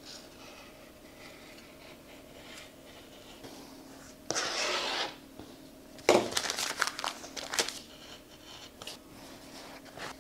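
Rotary cutter rolling through fabric on a cutting mat, faint at first. About four seconds in comes a loud rustle as the cut fabric is pulled about. About six seconds in comes a sharp click followed by a run of clicks and rustling as the fabric is handled.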